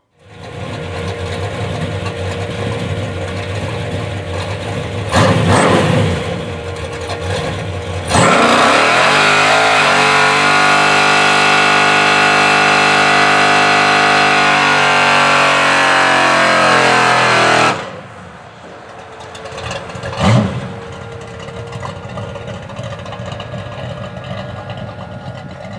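Chevrolet C10 pickup's 454 big-block V8 doing a burnout. The engine runs, revs up sharply about eight seconds in and is held at high revs for about ten seconds, then drops back, with one more short rev a couple of seconds later.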